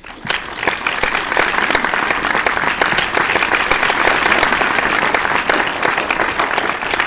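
Audience applauding, a dense mass of clapping that starts up at once and stays steady.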